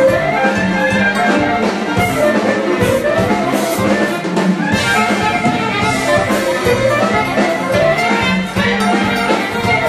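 Folk dance music with horns to the fore over a steady beat, played for a hand-in-hand circle dance (oro).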